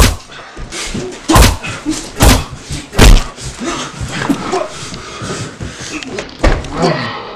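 Fight-scene punch hits: a run of sharp, loud blows, about five strong ones spaced a second or so apart with weaker ones between, and short grunts from the fighters in the gaps.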